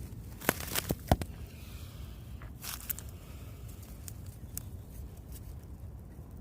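Microphone handling noise: a few sharp knocks and clicks in the first second and a half, then scattered crackles and rustles, over a steady low wind rumble.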